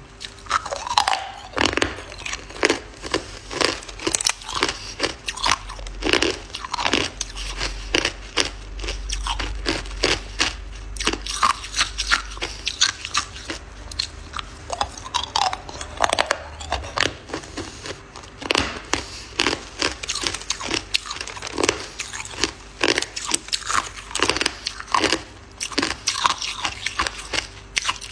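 Hard ice being bitten and chewed: a dense run of sharp, irregular crunches, about two or three a second, as the pieces crack between the teeth.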